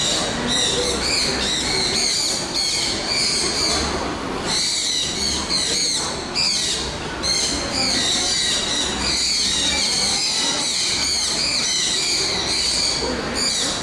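Many birds calling and chirping without a break, a dense high chatter over steady low background noise.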